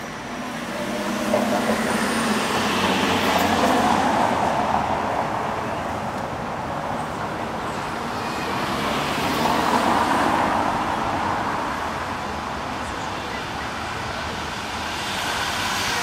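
Street traffic: passing cars, their tyre and engine noise swelling and fading twice, loudest about four seconds in and again about ten seconds in.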